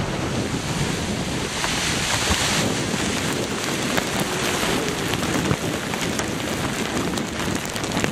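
Dense rushing roar of a mine blast's dust cloud and flying dirt sweeping over the microphone just after the detonation, buffeting it like strong wind, with scattered crackles of falling debris.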